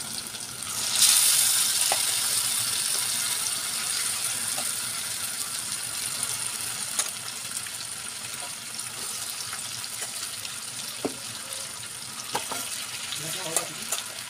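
Chicken pieces and potatoes hitting hot oil and fried onions in an aluminium pot: a burst of sizzling starts suddenly about a second in and slowly dies down. Occasional clinks of a metal spoon against the pot.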